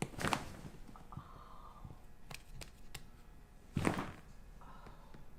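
Chiropractic adjustment cracks: a sharp joint pop right at the start and a louder one about four seconds in, with a couple of faint clicks between them.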